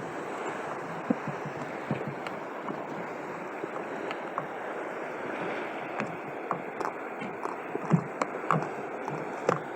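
Steady wash of sea water around a fishing kayak, with scattered light knocks and clicks.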